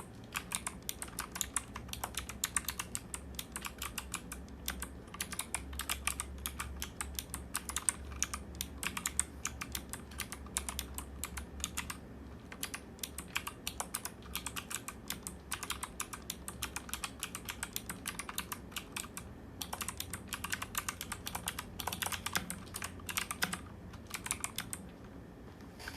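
Rapid typing on a mechanical keyboard fitted with Kailh BOX Thick Click clicky switches: a dense stream of sharp clicks in continuous runs, broken by a few brief pauses.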